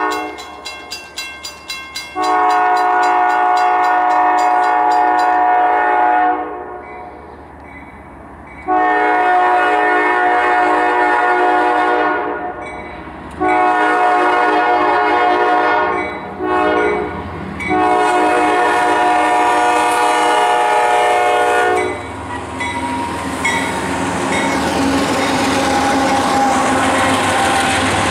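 A CSX GE ES40DC freight locomotive's multi-chime air horn blowing the grade-crossing signal: two long blasts, a shorter one, a brief one, then a final long blast. After the horn stops, the diesel locomotives and wheels pass close by with a rising rumble.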